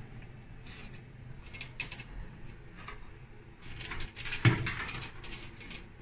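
Small clicks, taps and rustles of hands handling wires, a resistor and the plastic terminal block of a fire alarm control panel. A louder knock comes about four and a half seconds in.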